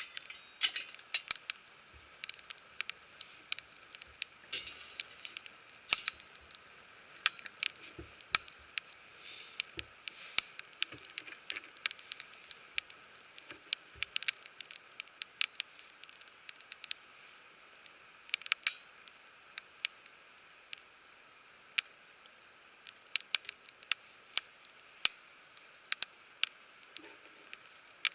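Wood fire crackling, with irregular sharp pops and snaps over a faint hiss.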